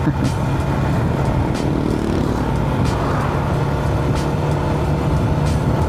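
Motorcycle engine running at a steady cruising note under a low rush of wind and road noise.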